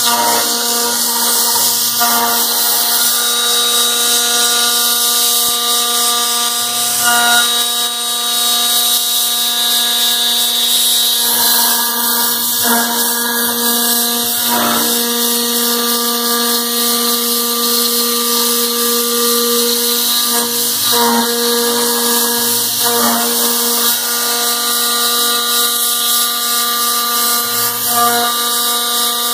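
CAMaster CR-304 CNC router spindle cutting aluminum: a steady, loud, fixed-pitch whine over a hiss, with brief changes in tone every few seconds.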